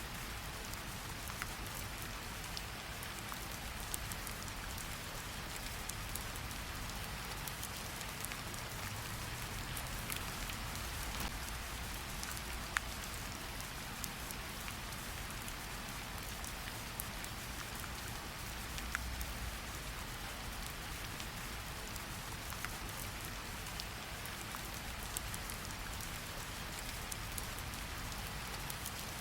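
Steady rain mixed with a crackling wood fire: an even hiss with a low rumble beneath, broken by scattered sharp pops and snaps.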